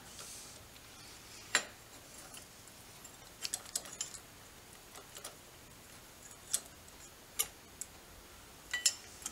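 Scattered sharp metallic clicks and clinks of small metal motorcycle gearbox parts being handled and fitted by hand, the loudest about one and a half seconds in and a quick cluster around three and a half seconds.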